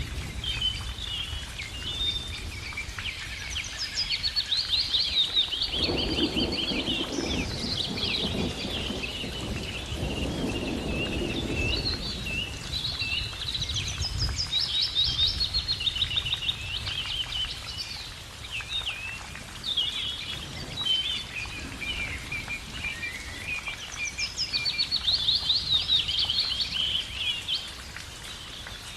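Several songbirds singing, with quick chirps, fast trills and warbled phrases overlapping throughout. Underneath is a low rushing noise that swells twice in the first half.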